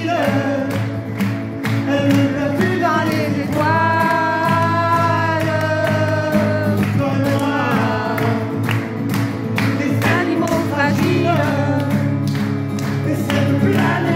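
Male voice singing live over a strummed acoustic guitar, holding one long note a few seconds in.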